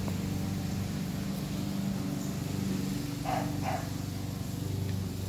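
American Bully puppy giving two short yips in quick succession a little past the middle, over a steady low hum.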